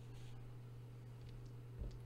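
Quiet room tone with a steady low hum. There is a faint rustle just after the start and a soft low knock near the end.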